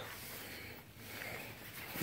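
A brief quiet gap in the background music, leaving only faint, even background noise.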